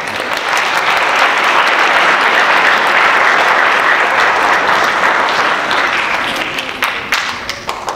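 Audience applauding, swelling in the first second and dying away near the end.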